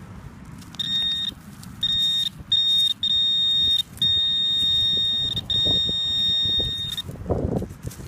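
Metal detector giving its target tone: a steady high-pitched beep sounding about six times, the beeps growing longer until it holds for about a second and a half, as the detector is swept over a buried metal target. Rustling of leaves and soil underneath.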